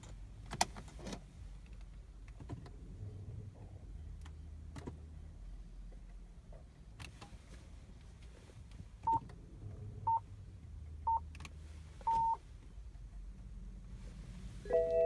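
Car cabin electronics of a 2007 BMW 550i that won't start. A couple of sharp clicks come first, then a faint low hum twice. Four high beeps follow about a second apart, the last one longer, and a multi-tone warning chime sounds near the end.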